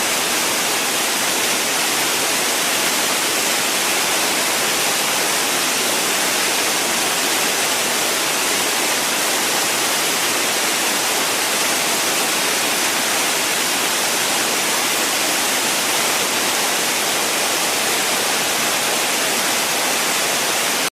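Waterfall: a steady, even rush of falling water with no change or separate events.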